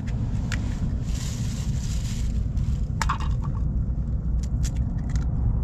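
Wind buffeting the microphone as a steady low rumble, with a brief hiss about a second in and scattered short clicks and knocks of camp-cooking gear being handled, mostly in the second half.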